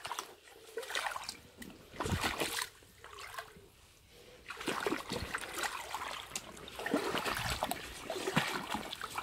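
Shallow river water splashing in irregular bursts, about four of them with quieter gaps, over a faint trickle.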